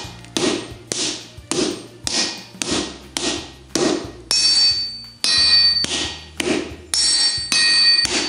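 Smith's hand hammer and striker's sledgehammer taking turns on a wooden practice stick laid across a steel anvil, about two blows a second. Some blows are dull knocks and others ring out from the anvil; the ringing ones come more often in the second half.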